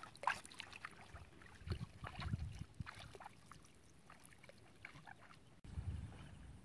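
Water splashing and sloshing with scattered sharp clicks and knocks, heaviest about two seconds in and again near the end.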